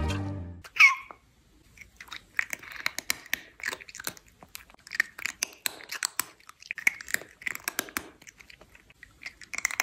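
The music cuts off and a kitten gives one short mew that falls in pitch about a second in. Then a cat chews close to the microphone, making an irregular run of crunches and wet mouth clicks.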